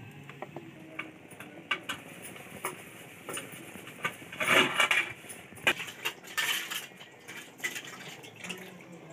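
Light clinks and knocks of an aluminium cooking pot and its lid, scattered through, with a short rushing noise about halfway through.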